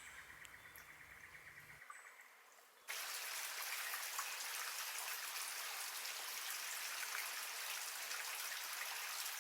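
Small creek running, a steady hiss of trickling water that comes in suddenly about three seconds in, after a near-quiet start.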